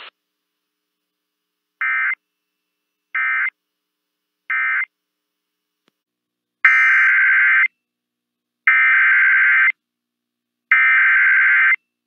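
NOAA Weather Radio Specific Area Message Encoding (SAME) digital data bursts, a harsh two-tone buzz. Three short bursts about 1.3 s apart, the end-of-message code closing the previous warning, are followed by three longer, louder one-second header bursts announcing the next warning.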